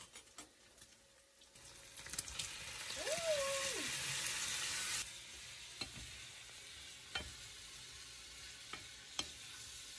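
Vegetables sizzling in hot olive oil in a frying pan. The sizzle swells about two seconds in, is loudest until about halfway, then drops suddenly to a quieter steady sizzle with a few clicks of stirring.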